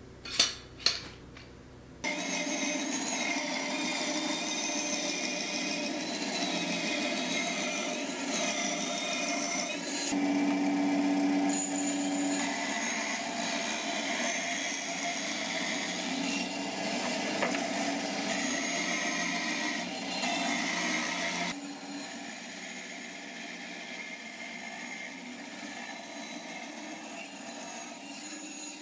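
Two sharp knocks near the start, then a bandsaw running steadily and cutting through a thin strip of wood, its blade noise changing as the cut goes on; it drops to a quieter level for the last several seconds.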